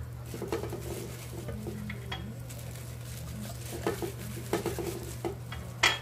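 Plastic-gloved hands handling a raw whole chicken and picking seasoning from a small dish: soft rustling with scattered light clicks, the sharpest click near the end, over a steady low hum.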